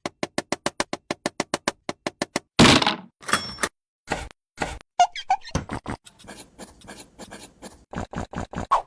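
A fast, even run of light hard taps, about five a second, then a short scrape and a looser series of irregular taps and knocks, as small hard pieces such as miniature bricks are tapped and set in place.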